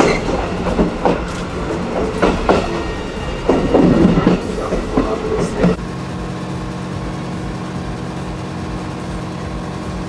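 Passenger coach of a steam-hauled train rolling over rail joints and points, with irregular clanks and knocks. About six seconds in this gives way to a steady droning hum: the coaches' own onboard generator running to power the air conditioning.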